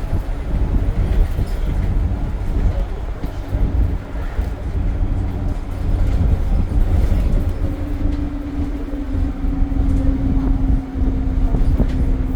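Alexander Dennis Enviro 200 bus heard from on board: a heavy low engine rumble with a steady hum, which steps slightly higher in pitch and gets stronger about seven and a half seconds in.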